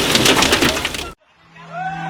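Heavy rain pouring, cut off abruptly about a second in. After a brief gap a steady low hum and a held tone with an overtone come in, the tone rising slightly before levelling off.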